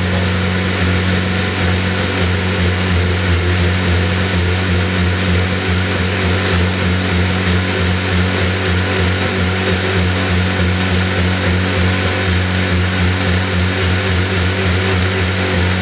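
Honda-based Viking aircraft engine running steadily on its first ground run, with an even, unchanging engine note.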